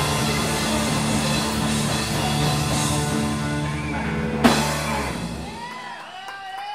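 Live rock band of electric guitars, bass and drum kit holding out the closing chord, with the drummer rolling around the drums and cymbals. A final hit about four and a half seconds in ends it, and the band's sound rings out and fades.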